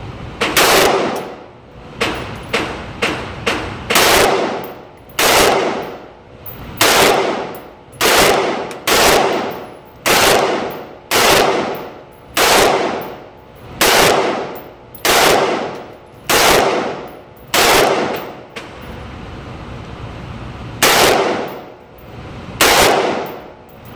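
AR-15 rifle in 5.56 firing about twenty single shots at an uneven pace, most about a second apart, each echoing away over about a second. A quick string of four comes about two seconds in, and the last two shots follow a pause of about two seconds.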